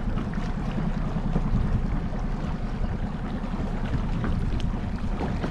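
Outboard motor of a small inflatable boat running steadily at low harbour speed, with wind and water noise over it.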